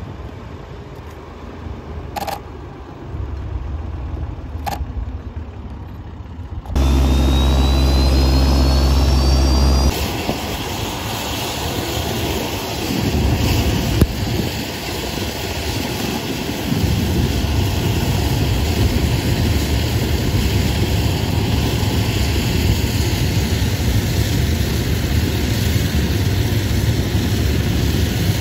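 A tow tug's engine runs quietly for the first several seconds. Then a jet engine start: a loud steady hum with a high whine rising in pitch, followed by the Blackburn Buccaneer's Rolls-Royce Spey engine running steadily, a step louder for the second half.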